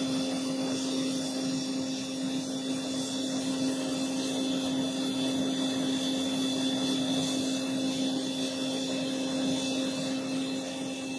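An electric air blower on a metal-melting furnace, running steadily: a constant rushing hum with a low steady tone and a faint higher whine.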